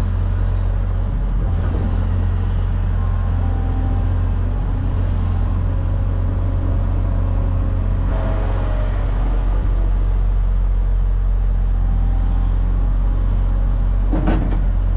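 Diesel engine of heavy equipment running steadily with a low, even hum, and a single metallic clank near the end.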